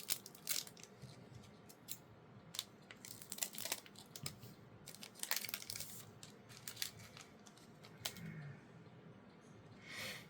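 A Magic: The Gathering booster pack's foil wrapper being torn open and crinkled in the hands, in irregular crackles and rips.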